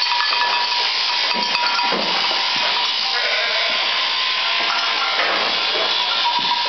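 Sheep bleating a few times over the steady whirr of electric sheep-shearing machines running, their handpieces driven from overhead shafts.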